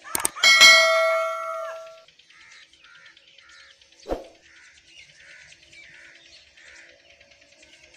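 Subscribe-button sound effect: a quick mouse click, then a bright bell chime that rings and fades over about a second and a half. After it, faint bird chirps repeat, with a single short knock about four seconds in.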